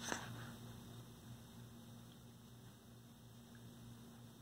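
Faint, steady low electrical hum with light hiss, and a soft tap right at the start.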